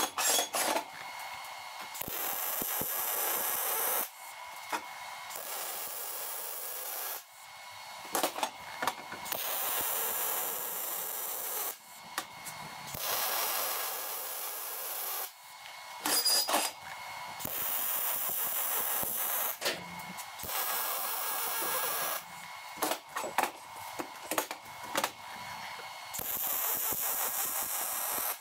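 MIG welding with a Vulcan 215 welder on 3/16" mild steel: a steady, crackling hiss of the arc, laid down in several beads of two to four seconds each with short breaks between them.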